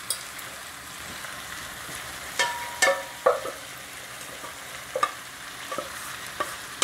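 Meat, onion, carrot and peppers sizzling steadily in a frying pan as boiled noodles are tipped in from a bowl, with a few light clinks and knocks, the loudest about two and a half to three seconds in.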